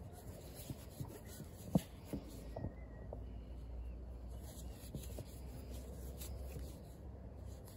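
Faint rubbing and light clicks of a crochet hook working thick t-shirt yarn, with one sharper click about two seconds in, over a low steady hum.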